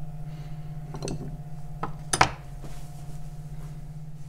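A few light metallic clinks of small metal parts being handled, the sharpest a little after two seconds in, over a steady low hum.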